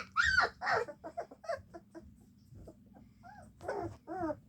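A litter of three-week-old puppies whimpering and squeaking: several short, high, arching whines. There is a burst of calls at the start and another near the end, with fainter squeaks between them.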